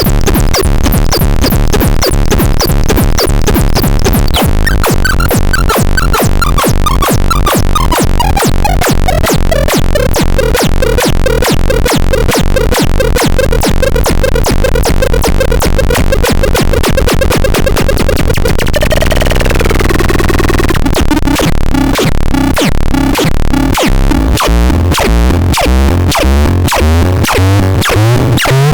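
UFOFON electronic sound device playing a rapid pulsing buzz. A tone slides down and settles at a steady middle pitch. About two-thirds of the way through there is a brief sweep, then the sound changes to a coarser, choppier rhythmic pattern.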